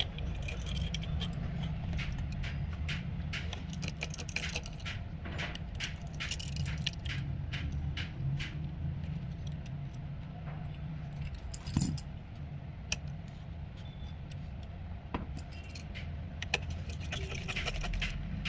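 Small metal clicks, taps and scrapes of a precision screwdriver and tiny screws being worked out of an iPhone 7 Plus logic board, over a steady low hum.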